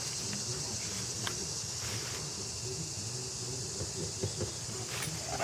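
Steady, high-pitched chorus of insects, like crickets, with a few faint, brief rustles.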